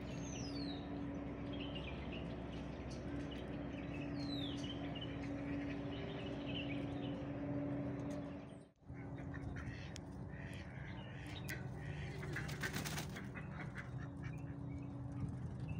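Small birds chirping, with two quick falling whistles, over a steady low hum. After a cut, a white domestic duck calls among scattered clicks and scuffs.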